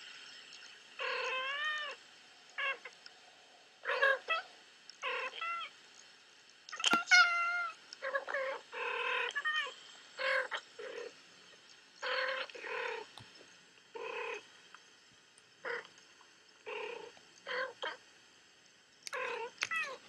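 Two cats meowing back and forth from a cat video playing on the screen: a string of short, chattering meows, one every second or so, many of them bending up and down in pitch.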